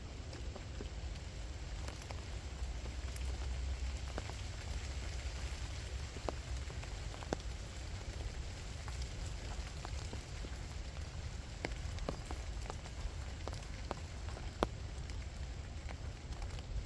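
Steady rain falling, with many scattered sharp ticks of single drops landing close by, over a low rumble.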